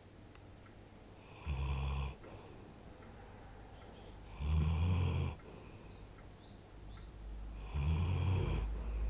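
13-year-old black Labrador retriever snoring in its sleep: three low snores about three seconds apart, each lasting under a second, with quiet breathing between them.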